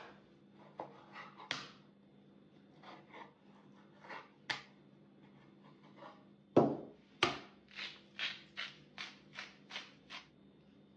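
Kitchen knife slicing raw chicken breast on a wooden cutting board: scattered knocks and cuts, two louder thumps just past the middle, then a run of about nine even strokes, roughly two and a half a second, that stops near the end.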